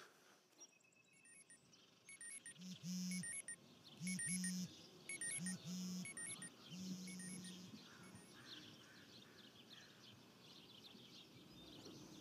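A phone alarm going off: its vibration motor buzzes in short pairs, with faint high electronic beeps over it, about five times over five seconds, then stops.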